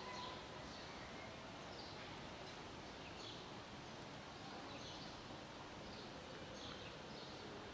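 Faint small birds chirping over steady outdoor background noise: short, high, falling chirps repeating every second or so.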